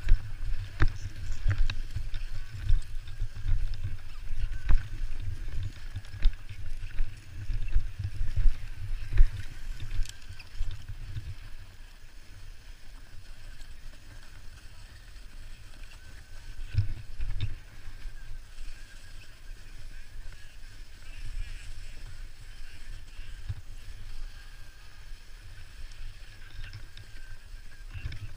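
Low rumble and scraping of a person sliding seated over packed snow down a ski slope. It is bumpy and louder for about the first ten seconds, then quieter and steadier.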